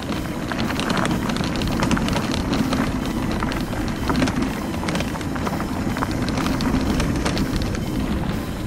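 High-speed mobility scooter riding over rough asphalt: a steady rumble from the wheels and frame, with many small clicks and rattles throughout.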